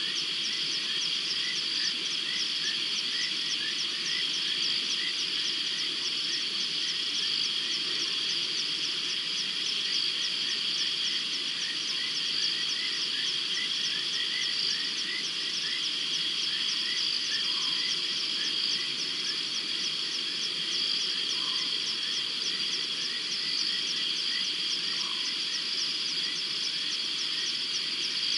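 Night chorus of frogs and insects: a dense, steady high trilling made of rapid repeated chirps, with a few fainter lower calls in the second half.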